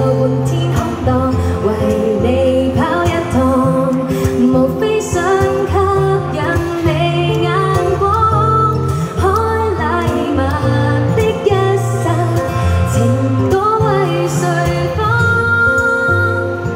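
A Cantopop song sung live into microphones, a woman's voice and then a man's, with a strummed acoustic guitar accompanying.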